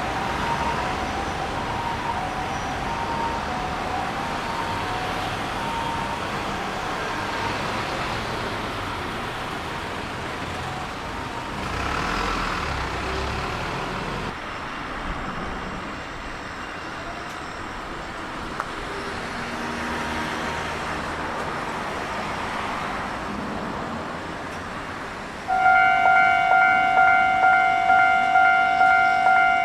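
Railway level-crossing alarm: a loud repeating clang of one pitch, about two to three strokes a second, starting suddenly about four seconds before the end. Before it, street and traffic noise, with a fainter two-tone crossing alarm in the first several seconds.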